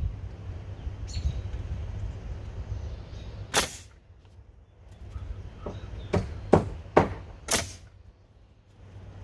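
Pneumatic nail gun firing into deck railing boards: one sharp shot about a third of the way in, then a quick run of four shots near the end. A low rumble sits under the first half.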